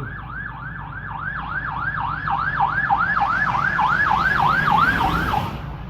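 Emergency vehicle siren in a fast yelp, rapid rising-and-falling wails about three a second, growing louder and then cutting off suddenly near the end.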